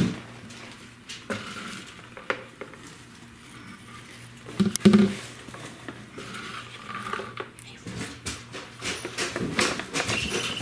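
A cat rooting with its head inside an overturned cardboard bucket on a hardwood floor: the bucket knocks and scrapes on the boards, with a louder pair of knocks about halfway through and light clicks and rustles toward the end.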